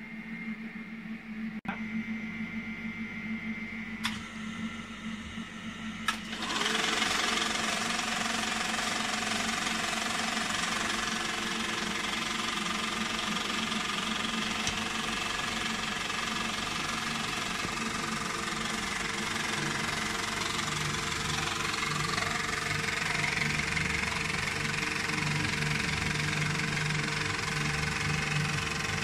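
Simplex 35mm film projector starting up: a few sharp clicks, then about six seconds in the motor and film mechanism start and run with a steady mechanical clatter.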